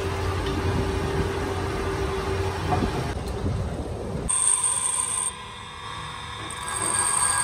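Metal lathe running with its large chuck spinning: a steady machine hum. About four seconds in the sound changes abruptly to a steady high whine, with the low rumble gone.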